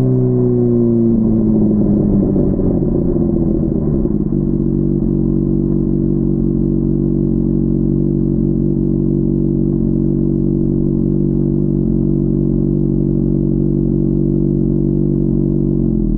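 Honda CBR600RR's inline-four engine, muffled, with its revs falling over the first four seconds as the bike slows, then settling into a steady low idle.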